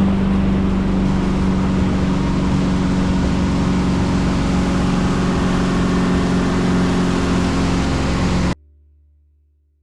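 Motorboat engine running steadily under way, a constant hum with wind and water noise. It cuts off abruptly near the end.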